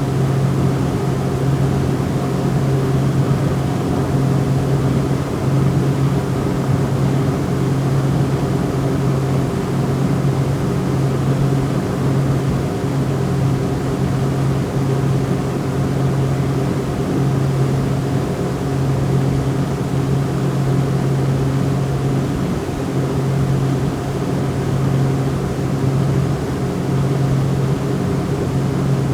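Motorboat engine running steadily at a constant speed, a low, even drone with no revving up or down.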